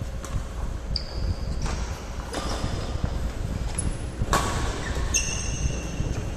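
Shuttlecock being hit back and forth with badminton rackets in a doubles rally: about six sharp hits, the loudest a little over four seconds in. Short high squeaks come between some of the hits, over a steady low hum.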